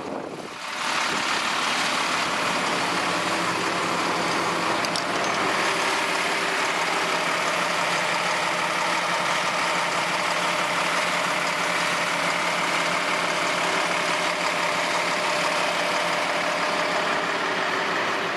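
Caterpillar 320 BL excavator's diesel engine running steadily, stepping up in level about a second in.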